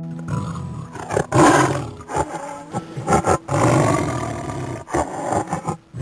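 Tiger roaring, several rough roars in a row, the loudest about a second and a half in.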